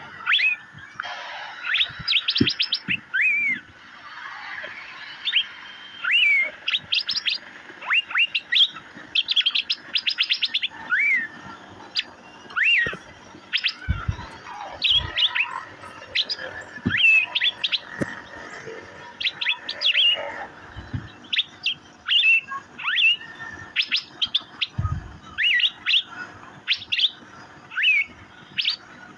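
Asian fairy-bluebird (cucak biru) calling continuously: short sharp whistled notes, some curving up or down, mixed with quick runs of rapid chips every second or two.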